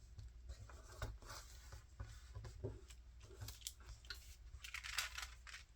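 Faint rustling and soft taps of paper being handled and pressed down by hand, with a slightly louder rustle about five seconds in.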